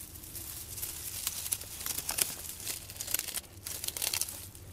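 Dry leaf litter and grass rustling and crackling as they are brushed aside by hand, in short irregular crackles.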